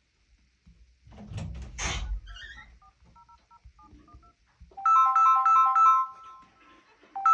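Mobile phone incoming-call ringtone: a fast melody of short, bright pitched notes starts about five seconds in, and the phrase starts over near the end. Before it come a brief rustle of handling and a few faint short beeps.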